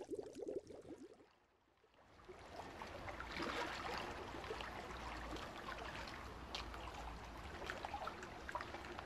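Underwater bubbling for about the first second, a short near-quiet gap, then water lapping and dripping at the sea surface around a swimmer in a wetsuit, with many small splashes and clicks.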